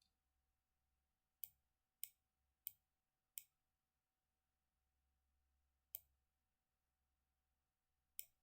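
Computer mouse button clicking, six sharp clicks: four in a quick, even run, then one after a pause and one more near the end.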